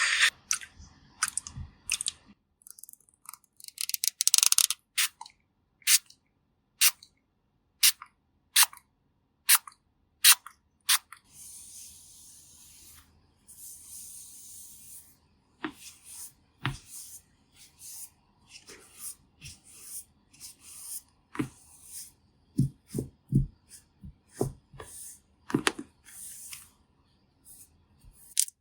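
Close-miked ASMR sounds of makeup tools being handled: a run of crisp clicks about one a second, a stretch of soft scratchy brushing, then more clicks and a few low thuds near the end.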